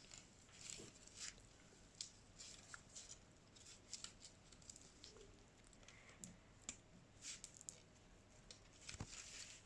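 Faint scattered clicks and rustles of plastic steering-column parts being handled and fitted by hand, with a sharper click near the end.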